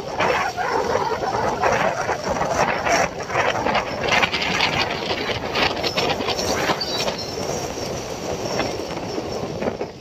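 Sea surf: small waves breaking and washing in, a loud, continuous, uneven rush of noise that swells and ebbs.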